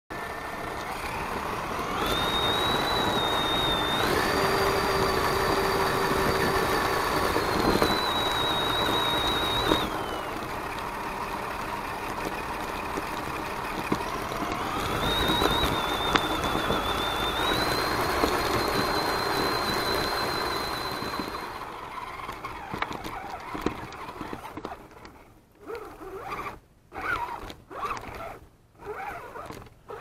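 Electric motor and gear train of an Axial SCX10 Deadbolt RC crawler whining as it drives, heard close up from a camera mounted on the truck. The high whine steps up and down in pitch with the throttle, dies away about two-thirds of the way through, and then comes in short stop-and-go bursts near the end.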